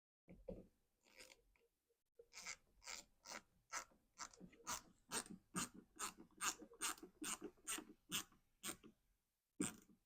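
Hand tool driving Torx screws into a car door panel: a run of short scraping clicks, about two or three a second, stopping briefly near the end before one last stroke.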